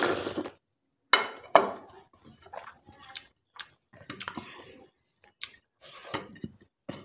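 A slurp from a small glass bowl, then two sharp glass-on-table clinks between one and two seconds in as the bowl is set down, followed by soft scattered sounds of fingers working rice on a plate and chewing.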